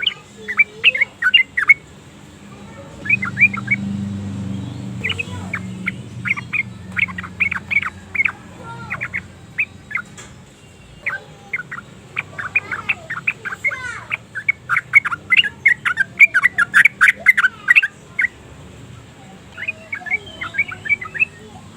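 Yellow-vented bulbul singing: phrases of quick, short chirped notes broken by brief pauses, with the longest, loudest run in the second half.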